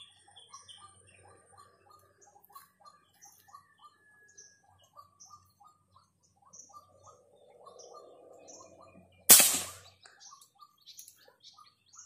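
Wild birds calling: a string of short repeated notes, a few a second, with higher chirps scattered over them. About nine seconds in comes a single loud, sharp airgun shot, by far the loudest sound, dying away within about half a second.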